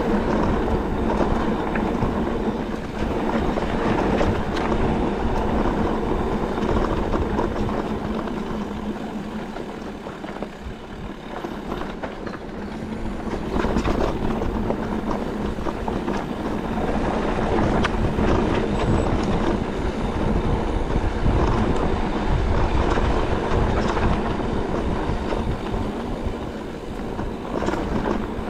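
Enduro e-mountain bike being ridden over rough ground: a continuous rattling clatter of tyres, chain and frame over a steady low hum. It eases off about ten seconds in, then picks up again.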